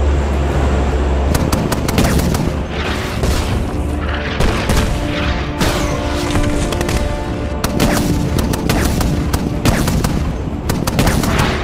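AC-130 gunship cannon fire and shell explosions: a string of heavy shots and booms, unevenly spaced, over film-score music.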